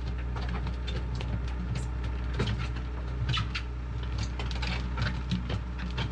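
Compact track loader's diesel engine running steadily, with irregular sharp clicks and knocks over the hum.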